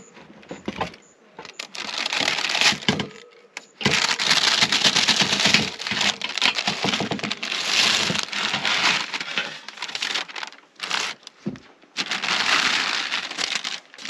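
Baking paper crinkling and rustling as it is peeled off sticky scone dough and crumpled, in several long bursts with short pauses between them.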